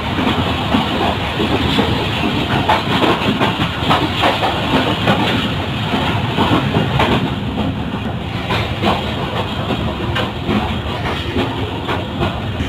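Passenger train running along the track: a steady rumble with repeated clacks of the wheels over the rail joints.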